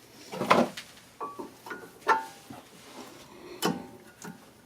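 Metal parts and tools being handled during a brake job: four or five separate clinks and knocks, several with a short metallic ring.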